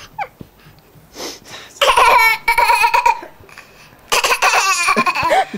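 Two loud bursts of laughter, each lasting about a second and a half, the first about two seconds in and the second about four seconds in.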